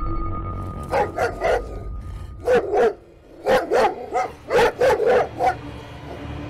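Cartoon dog barking in short, sharp barks: three about a second in, two more about a second later, then a quick run of about seven.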